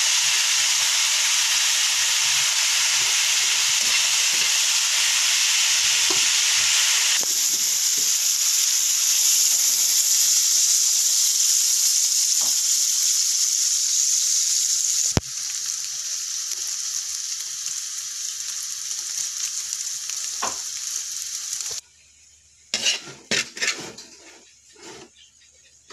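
Sliced bitter melon and beaten egg sizzling in hot oil in a wok as they are stirred. The steady sizzle drops sharply about fifteen seconds in and cuts out a few seconds before the end, leaving a few sharp spatula clicks and scrapes against the pan.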